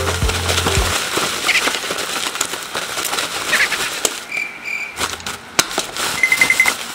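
Crinkling and rustling of plastic parcel packaging and bubble wrap being pulled open by hand, full of small crackles.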